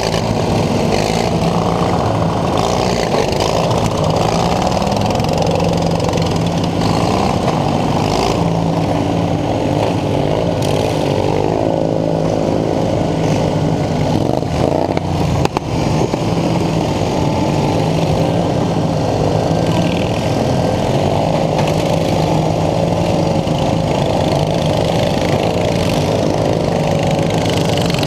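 Racing lawn mower engine running hard at high revs, its pitch rising and falling as it backs off and speeds up again, with a brief drop about halfway through.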